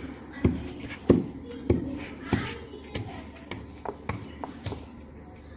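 Hands patting and pressing a wet paste onto a wall, a series of soft slaps about every half second, then lighter clicks as more is scooped from a basin.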